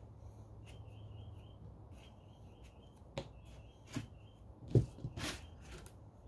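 A wire loop tool scraping and digging soft clay out of a small solid clay form, heard as a few short knocks and scrapes, the sharpest about three-quarters of the way through. Underneath runs a low steady hum and a faint repeated chirping.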